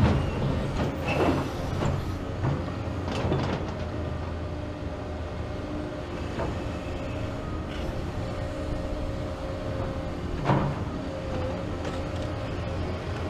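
Heavy diesel hydraulic excavators running steadily with a wavering whine, broken by several knocks and crashes of demolition debris and bucket work: the loudest right at the start, others about one and three seconds in, and another about ten seconds in.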